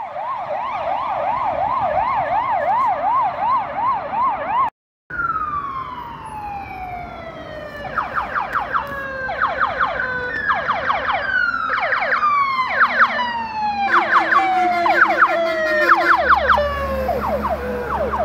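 Electronic sirens. First a police van's siren on a fast yelp, which cuts off about five seconds in. Then a second emergency vehicle's siren approaches, going through slow falling wails broken by bursts of rapid sweeps, and a heavy truck's engine rumbles in under it near the end.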